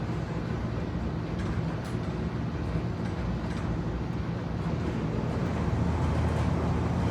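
Steady low mechanical rumble with a constant deep hum and an even wash of noise over it.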